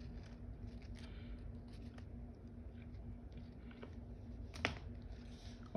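Faint rustling and light crinkles of folded paper models being handled, with one sharper tap about four and a half seconds in, over a faint steady hum.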